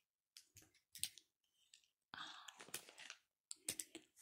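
Faint small clicks and a short rustle from plastic toy disc launchers being handled.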